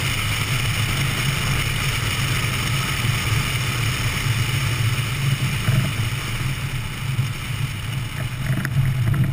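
Piper Super Cub's engine and propeller running steadily at low landing power, with wind rushing over the camera as the plane flies low over grass just before touchdown. A few light ticks come in near the end.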